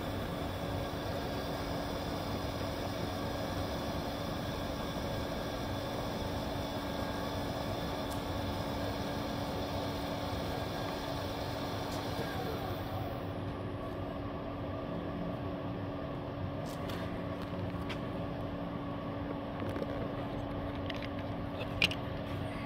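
Cyclematic CTL-618EVS variable-speed toolroom lathe running with its spindle turning at about 1,800 to 2,000 rpm: a steady mechanical hum with a constant tone. About thirteen seconds in the higher hiss falls away, and a few sharp clicks come near the end as levers are worked.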